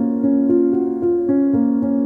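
Background music: a melody of evenly paced notes, changing a few times a second.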